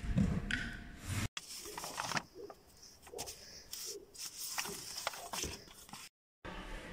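A brief low bump at the start, then sheets of painted paper rustling and crackling in short scattered crinkles as a stack of children's drawings is handled.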